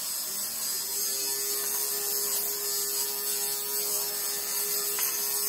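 Handheld electric fabric shaver (lint remover) switched on, its small motor running with a steady one-pitch hum.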